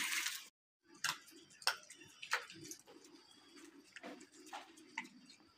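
Irregular sharp clicks and taps, about six in a few seconds, from gray langurs picking at scattered food on a concrete floor. The sound drops out to silence for a moment about half a second in.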